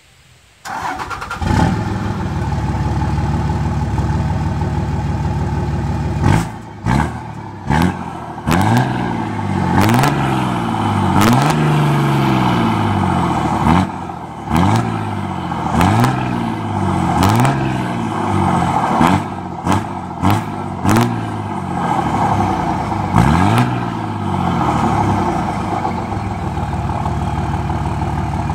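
A pickup truck's engine starts about a second in and idles, then is revved again and again in quick rising surges, its exhaust blowing out through a sheet-metal mailbox fitted over the tailpipe, with sharp cracks between several of the revs. It settles back to a steady idle near the end.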